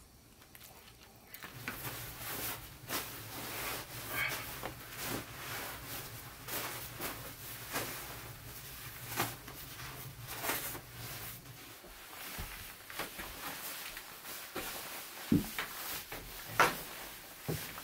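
Irregular small knocks and clicks of things being handled in a small room, over a low steady hum that stops about twelve seconds in; a few louder knocks come near the end.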